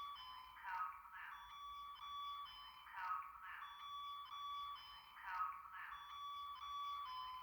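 EST Genesis fire alarm speaker strobe playing a code blue alert tone. A short burst and a held electronic tone repeat about every two and a quarter seconds, faintly.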